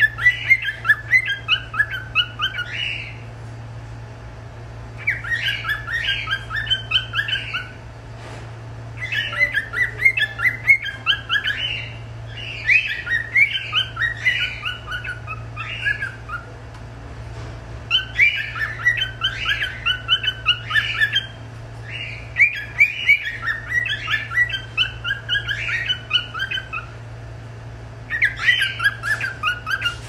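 Lutino cockatiel singing in phrases of rapid chirping notes, each phrase a few seconds long with short pauses between, over a steady low hum.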